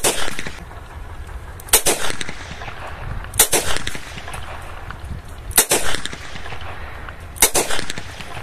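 Short-barrelled Smith & Wesson .38 Special revolver fired five times, one shot every 1.5 to 2 seconds, the first right at the start. Each sharp report trails off in a brief echo.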